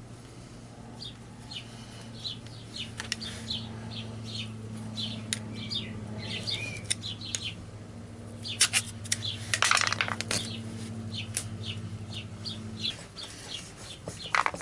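Small birds chirping in short, repeated notes over a steady low hum that stops near the end. About two-thirds of the way through comes a brief burst of hissing, rubbing noise.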